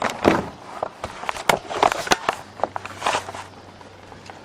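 Paper scrap-yard receipts being shuffled and handled close up: a quick run of irregular rustles and crinkles that dies away near the end.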